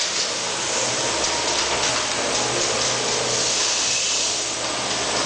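Steady rushing noise with a faint low hum, heard aboard a dark ride.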